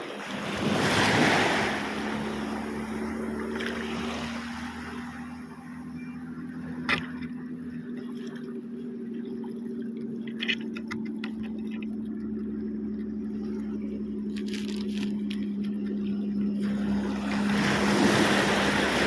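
A steady engine drone holding one even pitch, with waves washing in about a second in and again near the end. There is one sharp click about seven seconds in.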